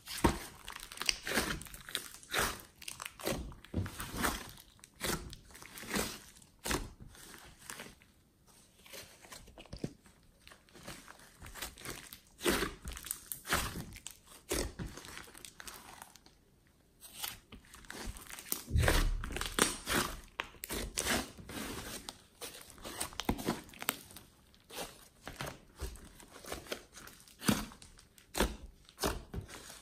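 Hands squeezing, pressing and folding a large mass of glossy slime mixed with clay, giving uneven wet squishes, pops and crackles. A heavier, deeper stretch of pressing comes about two-thirds of the way through.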